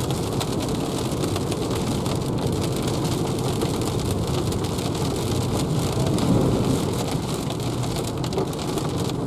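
Heavy rain drumming on the windscreen and body of a moving Renault ZOE electric car, heard from inside the cabin, mixed with the hiss of tyres on the wet road. A steady noise with no engine sound.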